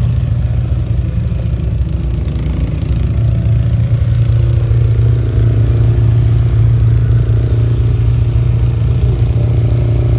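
An engine running steadily with a low, even hum, getting a little louder about four seconds in.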